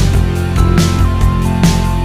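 Background music with a steady beat: a drum kit, bass and sustained guitar-like notes.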